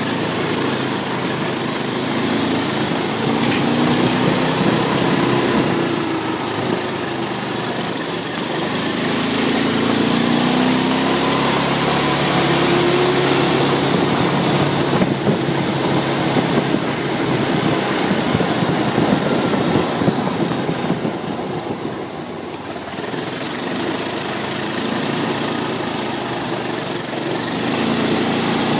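Quad bike engine running while the bike is ridden along, its note rising and falling with the throttle and easing off briefly about two-thirds of the way through.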